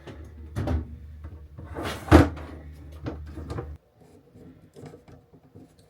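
Several knocks and clunks as a removed microwave convection oven is handled and set down among cabinets. The loudest clunk comes about two seconds in. A low background hum stops partway through.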